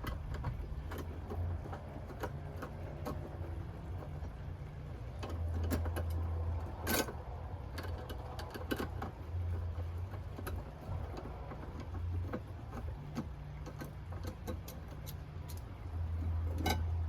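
Light-fixture mounting bracket being unscrewed from a ceiling electrical box. A low hum comes and goes in spurts, with scattered metallic clicks and two sharper knocks, one about seven seconds in and one near the end.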